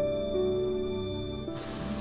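Soft background music, slow held notes of a gentle melody.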